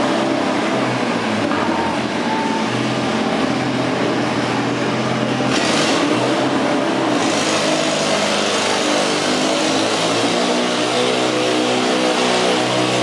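Riding lawn mower engine running loudly under load during a pull. Its note shifts about eight seconds in.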